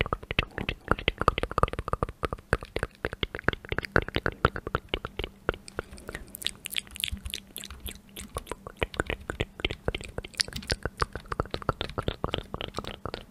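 Rapid, close-up tapping on the keys of a rainbow-backlit keyboard, many small key clicks a second. About six seconds in the clicks turn sharper and brighter.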